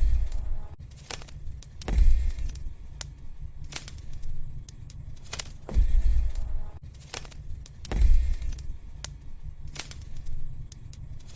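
Wood fire crackling in a fireplace: scattered sharp pops and snaps over a low rumble that swells up several times.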